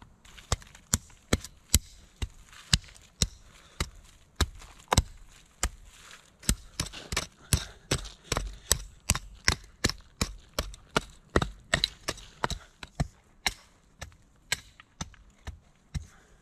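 A short-handled digging tool chopping repeatedly into earth, about two sharp strikes a second at an uneven pace, loosening soil to dig out a pit.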